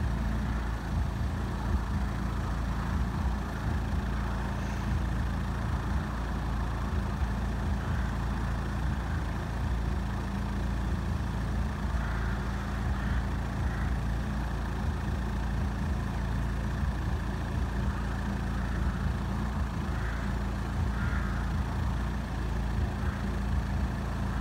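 A road vehicle's engine idling steadily, a low even rumble with no change in speed.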